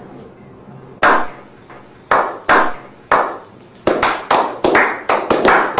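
A slow clap: hand claps, each echoing briefly, about a second apart at first, then speeding up to several claps a second near the end.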